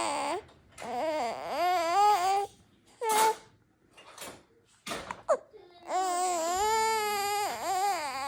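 Baby crying in several long, wavering cries with short pauses between them, and a couple of brief sharp sounds about halfway through.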